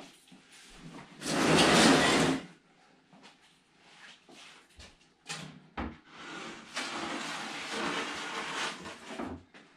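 Gear being handled and moved around a garage: a loud scrape about a second in, a couple of short knocks, then a longer scraping slide near the end as a wooden bed panel is pulled out from where it stands.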